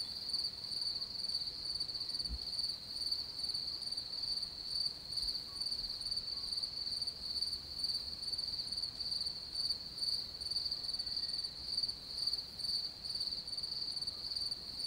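Crickets chirping at night: a continuous high-pitched trill held at one steady pitch, pulsing slightly.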